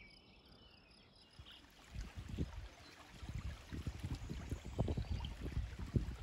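Wind buffeting the microphone outdoors, a low irregular gusting that starts about two seconds in and grows stronger, after a quieter opening.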